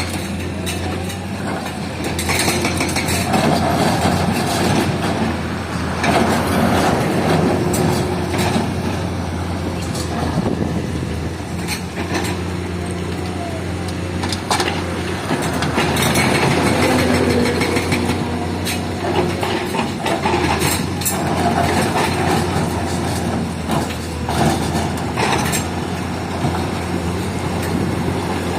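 Caterpillar 323 hydraulic excavator's diesel engine running steadily under load, its pitch swelling now and then as the hydraulics work. Irregular clanks and knocks come from the bucket and the dirt or rock dropping into a dump truck's bed.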